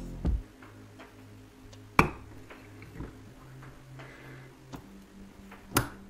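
Sharp plastic-on-glass clicks as a small hand suction cup is pressed and clamped onto a piece of mirror glass: one loud click about two seconds in and another near the end, with fainter ticks between.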